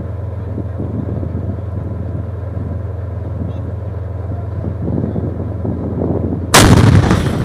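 A steady low rumble, then a sudden loud blast about six and a half seconds in that lasts about a second before dying down.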